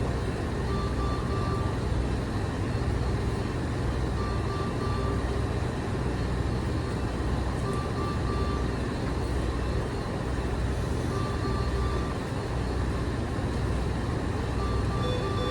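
Hospital ventilator and bedside equipment running: a steady low machine hum, with a brief tone recurring about every three and a half seconds.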